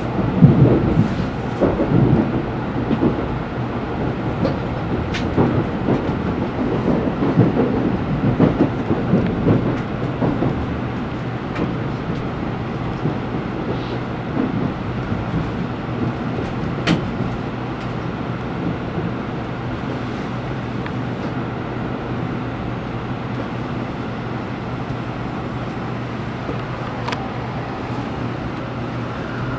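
Tokaido Shinkansen train heard from inside the car as it slows into its terminal stop. Uneven low rumbling and knocks for the first ten seconds or so ease into a steady hum with a few scattered clicks.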